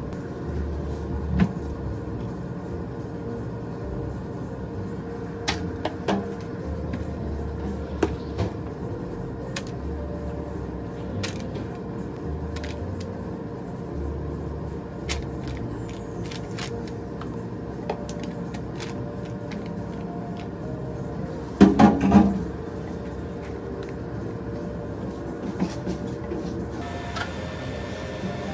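A spoon clicking and scraping against a plastic food container as chicken pieces are tipped into a paper-lined air fryer basket, with scattered light taps and a louder clatter of knocks late on, over a steady low hum.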